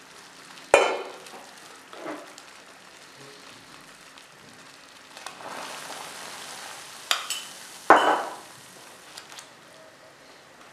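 A pot of salted water boiling on a gas hob. About five seconds in, salt tipped into the boiling water makes it foam up and hiss for a couple of seconds. Sharp knocks of kitchenware come throughout, loudest about a second in and about eight seconds in.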